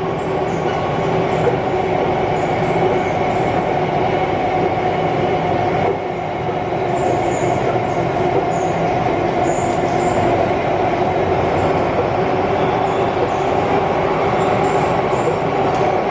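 Alstom Metropolis C751A metro train running, its IGBT-VVVF (Alstom ONIX) traction equipment giving steady tones over the rumble of wheels on rail. The loudness dips briefly about six seconds in.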